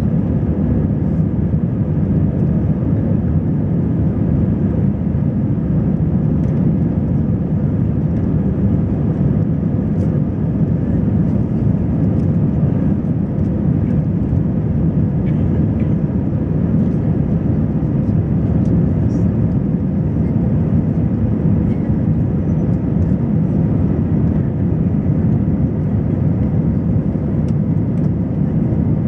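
Steady cabin noise inside an Airbus A320: a low, even drone of the engines with a faint steady tone above it.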